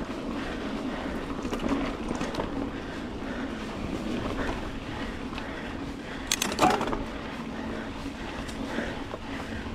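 Mountain bike rolling along a dirt trail: steady tyre and wind noise, with a sharp clatter of knocks about six and a half seconds in.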